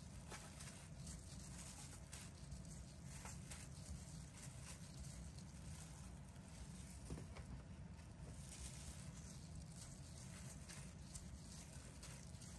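Faint soft taps and rustling as sugar-coated chiffon cake cubes are handled with plastic-gloved hands and set down on a metal baking tray, over a steady low hum.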